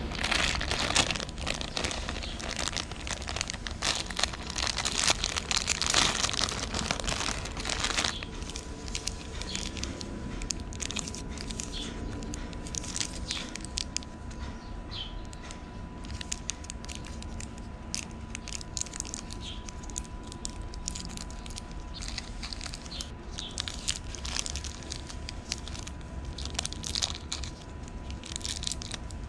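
Kit Kat mini's plastic wrapper crinkling and tearing open for about the first eight seconds, followed by sparse crunches and small clicks. A faint steady tone runs under it from about eight seconds in.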